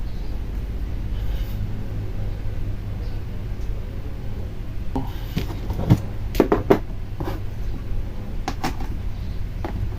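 Handling an opened laptop during reassembly: a few scattered light knocks and clicks of its plastic case, the densest cluster about six to seven seconds in, over a steady low hum.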